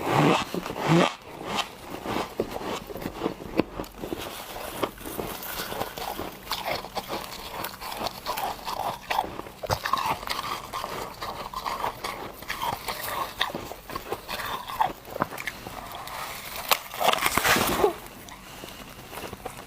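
A person biting into and chewing chunks of refrozen freezer frost, with a dense run of sharp, irregular crunches and a louder cluster of bites near the end.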